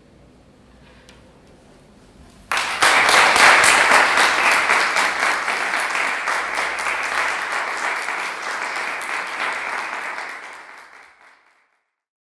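A quiet room for about two seconds, then a small audience suddenly breaks into applause, which fades out near the end.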